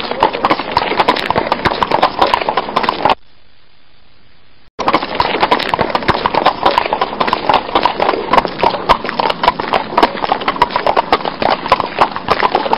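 A horse's hooves clip-clopping together with the knocking of a wooden horse-drawn cart, a dense run of short knocks. The sound drops away for about a second and a half about three seconds in, then resumes.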